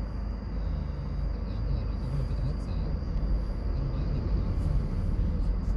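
Steady low vehicle rumble heard from inside a car as a large tour coach drives past close by.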